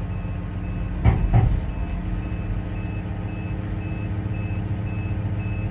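John Deere 210G LC excavator's engine running steadily, with the hydraulic coupler's beeper sounding short, high beeps about two and a half times a second. About a second in there is a brief louder surge as the bucket is curled to power the coupler release.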